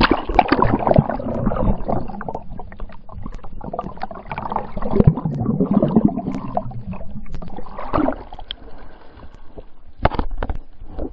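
Muffled water sloshing and gurgling, heard with the microphone underwater beside a kayak, with scattered knocks. About ten seconds in, a short sharp burst of splashing as the microphone comes back out of the water.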